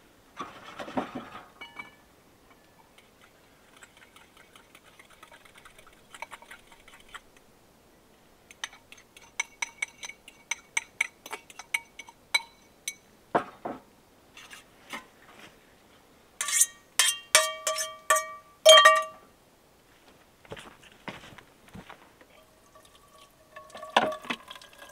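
Metal kitchen utensils clinking and scraping against a steel cooking pot and dishes while pasta is cooked and served: a series of short, sharp clinks that ring briefly, loudest about two-thirds of the way through.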